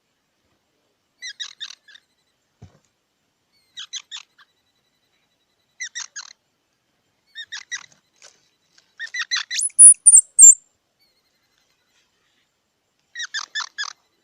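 Squirrel calling in short bursts of rapid, sharp chips, a cluster about every two seconds, with a louder high-pitched squeal about ten seconds in.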